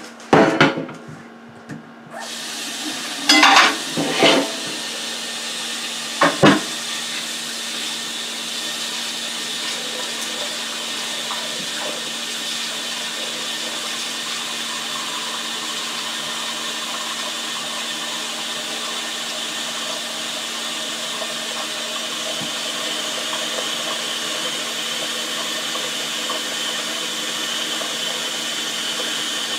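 Water from a kitchen tap running steadily into a large stainless steel stockpot, filling it halfway. A few metal knocks of the pot being handled in the first seconds.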